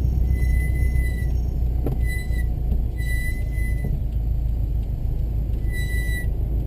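A car slowing to a crawl, heard from inside the cabin, with its low road and engine rumble. Over it the brakes squeal high-pitched four times, briefly.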